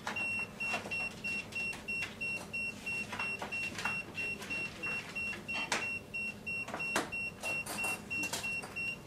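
Custom VP-01U pen-type voltage and phase detector beeping in voltage-detection mode: a high, single-pitched electronic beep repeating evenly about three to four times a second. The beeping signals that the tip is on a live phase conductor, not the earthed phase. Scattered clicks and rustles sound over the beeps.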